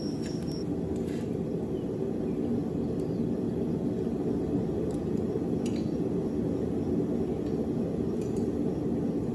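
A forge running, a steady low drone that holds level throughout, with a few faint light clinks of metal.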